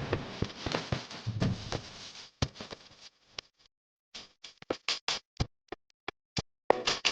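Cooking sounds from a pan: a steady frying hiss for the first few seconds that thins out, then a series of separate sharp clicks and taps.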